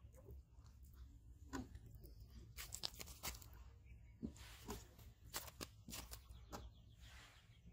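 Faint scrapes, rustles and a handful of short, sharp clicks as a landed carp is handled on sandy ground and the hook is worked out of its mouth, its body and tail shifting against the sand and grass.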